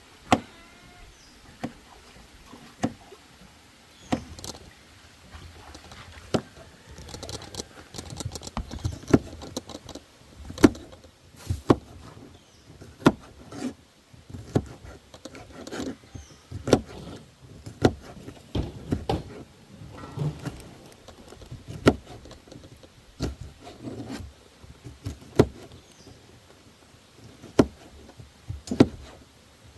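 Irregular knocks, clicks and clatter of kitchen utensils and containers being handled, a few hard taps each second with brief scraping in between.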